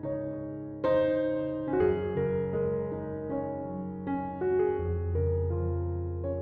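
Background piano music: a soft, slow keyboard piece with notes changing every half second or so and a sustained low bass note in the second half.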